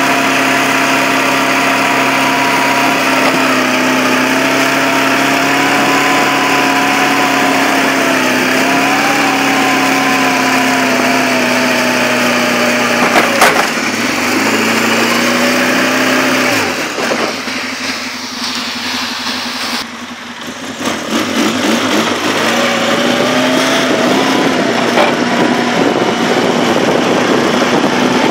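2004 Polaris 600 twin ATV's twin-cylinder engine running steadily while the quad pushes a snow plow. A brief knock comes about halfway through, then the engine eases off for a few seconds and picks back up.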